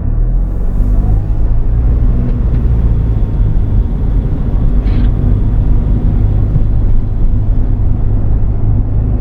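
Daihatsu Atrai RS 4WD running with a steady low rumble of engine and road noise, with a faint short whine about a second in and a brief click about halfway.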